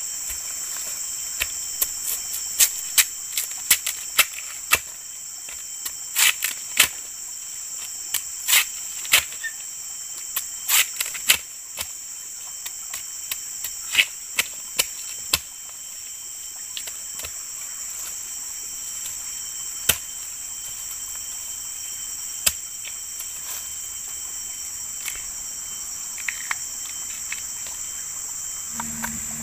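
Insects keep up a steady high-pitched drone, with a run of sharp clicks and knocks over it, dense in the first half and only now and then later.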